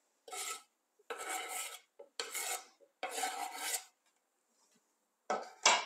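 Chopped vegetables being scraped off a wooden cutting board into a glass mixing bowl: four rasping scrapes, each about half a second long, then two short, sharper sounds near the end.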